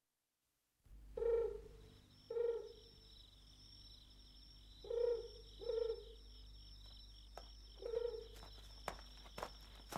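Night ambience fading in about a second in: an owl hooting low, mostly in pairs of hoots, over a steady high insect trill and a faint hum, with a few sharp clicks near the end.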